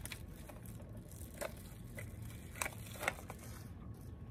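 Small paper and cardboard packaging being handled and unwrapped by hand: soft rustling with a few sharp crinkles, the loudest two about three seconds in.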